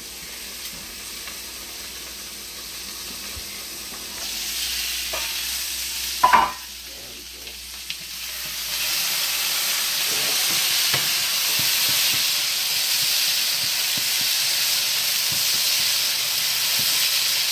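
Frying sizzle from a chicken breast in oil in a cast-iron skillet and diced red potatoes in a second pan, louder from about nine seconds in. A spatula stirs the potatoes with light scraping, and there is one brief loud sound about six seconds in.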